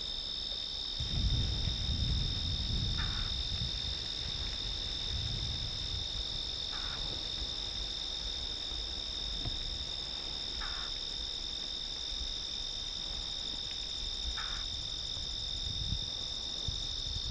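Steady, unbroken chorus of crickets, with a short call repeating about every four seconds over it. A low rumble sounds in the first few seconds.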